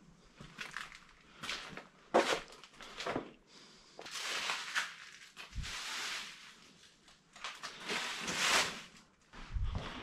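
Footsteps crunching and scuffing over debris on a littered floor, irregular and uneven, with a sharp knock about two seconds in and longer grinding scrapes later on.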